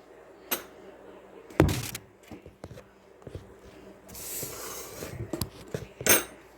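Kitchen handling sounds: a few sharp knocks of cookware and utensils, loudest about one and a half seconds in and again near the end, with smaller ticks between and a soft hissing noise lasting about a second a little past the middle.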